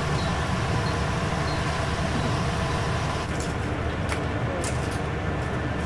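A steady low mechanical rumble of shop-kitchen machinery. From about three seconds in it is joined by a few light metal clicks from tongs lifting fried chicken off a steel draining rack into a bowl.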